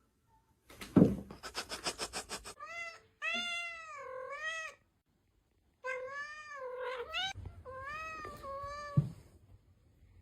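Domestic cat meowing: a string of four or five long, wavering meows that rise and fall in pitch. It starts with a sharp knock and a rapid run of clicks.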